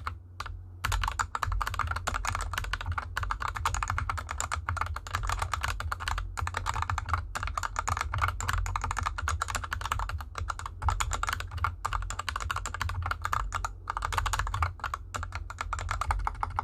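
Fast, continuous typing on a GK64X 60% hot-swap mechanical keyboard with Gateron Yellow linear switches lubed with Krytox 205g0 and DSA keycaps. The keyboard sits on a desk mat over felt fabric. There is a brief pause about half a second in.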